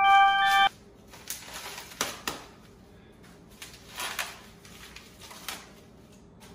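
A short chime-like music sting that cuts off under a second in, then intermittent crinkling and rustling of packing wrap being pulled off a metal office chair base.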